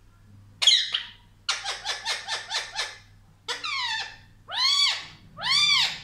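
Indian ringneck parakeet calling: a sharp falling squawk, then a rapid run of about seven short chattering notes, a falling call, and two arched calls that rise and fall near the end.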